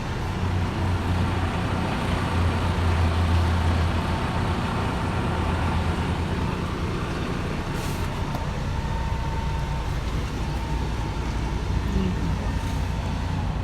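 Steady low drone of a 2014 Freightliner Cascadia semi-truck's diesel engine idling, heard from inside the sleeper cab, with a faint steady whine above it.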